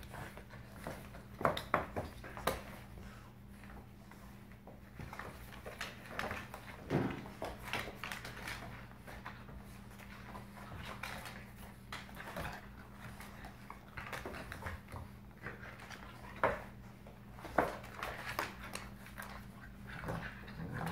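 Two dogs play-fighting: scattered short dog sounds and scuffling paws on a wooden floor, loudest about two seconds in and again about three-quarters of the way through, over a faint steady low hum.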